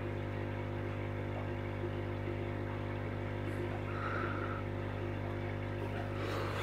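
Steady low electrical hum with a stack of even overtones, unchanging throughout, with a faint rustle near the end.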